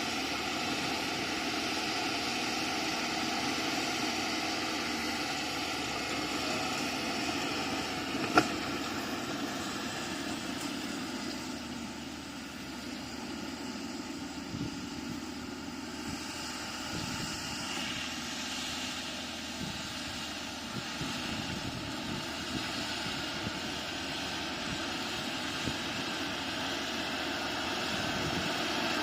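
Bulldozer's diesel engine running steadily, with one sharp knock about eight seconds in.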